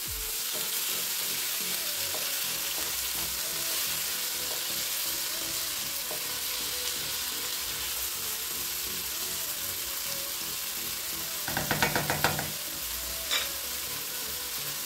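Chopped onion, green chile, garlic, celery and tomato sizzling in olive oil in a nonstick frying pan, a steady hiss, while a wooden spoon stirs them. Near the end comes a quick run of knocks, then a single knock about a second later.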